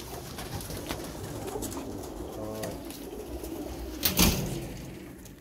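Domestic pigeons cooing softly in the loft, then one loud knock about four seconds in as the loft door is shut.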